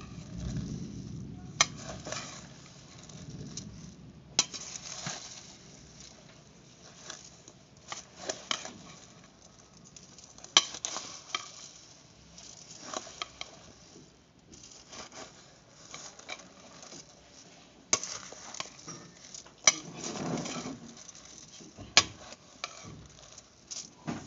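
Steel spoon stirring puffed rice and chopped fruit in a stainless-steel bowl: a dry rustle of the puffed rice, broken by irregular sharp clinks of the spoon against the bowl.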